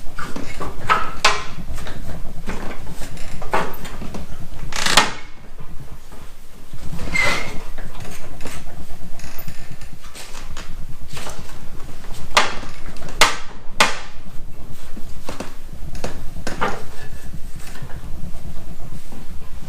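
Irregular metallic knocks and clanks of snow plow parts being worked by hand to line up a pivot pin against a spring, about ten strikes, loudest around five seconds in and in a quick cluster of three near thirteen seconds. A steady low rumble runs underneath.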